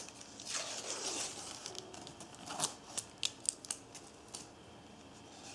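Red plastic sealing tape being peeled off the rim of a metal JSB airgun pellet tin: a soft rustling tear at first, then a run of sharp little ticks and clicks as the strip comes away.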